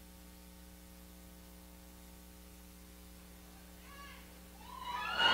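Steady electrical mains hum, a few evenly spaced low tones with no other sound over them. Faint voices come in about four seconds in and grow louder near the end.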